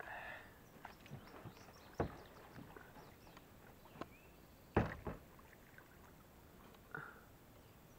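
Knocks and thumps on a small boat, about five spread through, the loudest a little past halfway, as someone clambers about in it.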